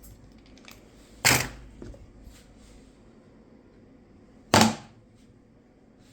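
Two sharp knocks about three seconds apart, with a few faint clicks between.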